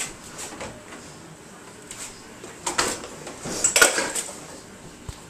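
Dishes and kitchenware clinking and knocking as they are handled in an open dishwasher rack, a few light clicks at first, then a cluster of clatters about three to four seconds in.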